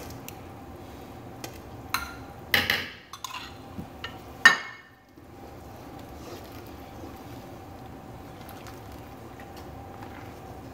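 Spoon clinking and scraping against a stainless-steel stockpot as roux mixed with water is stirred into gumbo: a few sharp clinks in the first half, the loudest about four and a half seconds in, over a steady low hum.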